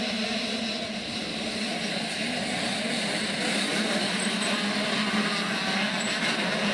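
Motocross bike engines running, with a steady, fairly even engine note.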